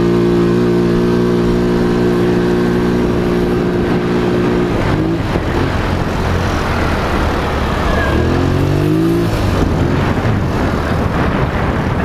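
Polaris Sportsman XP 1000 S ATV's twin-cylinder engine at high revs, holding a steady high pitch for about five seconds while the ATV runs fast across a field, then easing off. A rushing noise takes over, and the engine revs up again briefly about eight seconds in before easing off once more.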